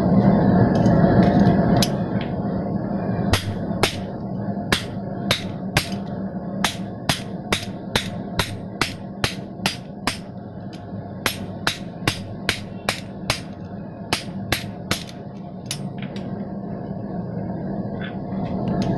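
Hand hammer striking hot steel on an anvil in a steady run of about two to three sharp blows a second. The blows start a few seconds in, break briefly partway, and stop a few seconds before the end, over a steady low hum.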